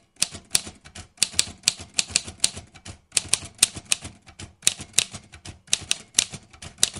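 Typewriter sound effect: a quick, irregular run of key clacks, several a second, broken by a few brief pauses.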